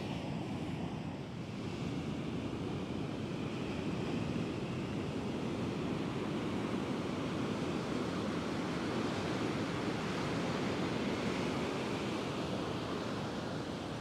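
Atlantic surf breaking and washing onto the beach in a steady wash of noise, with some wind on the microphone.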